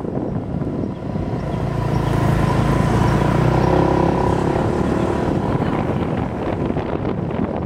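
Motor scooter engine noise under wind buffeting the microphone of a moving motorbike; the engine hum swells about two seconds in and fades again near six seconds as scooters pass close by.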